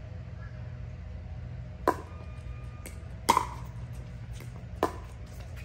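Pickleball paddles hitting a plastic pickleball in a rally: four sharp pops over about three seconds, one of them faint and the loudest a little past halfway, over a steady low hum.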